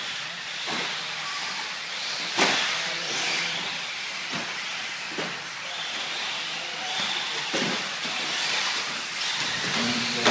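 Several electric radio-controlled short-course trucks, among them a Traxxas Slash 4x4, running on a dirt track: a steady high motor whine over tyre hiss, with a few sharp knocks, the loudest about two seconds in.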